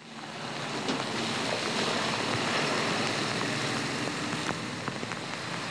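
Heavy army truck engine running as it drives along a wet road, under a steady hiss of rain and tyres on water.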